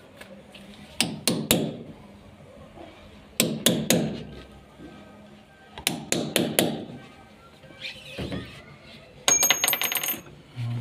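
Sharp knocks in groups of three or four, about every two and a half seconds, with a fast rattling run of clinks near the end that rings like struck metal.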